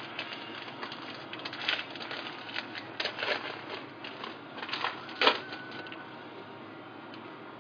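Hands opening and handling a trading-card box and its packaging: irregular rustling, crinkling and clicks, with a sharper snap a little over five seconds in.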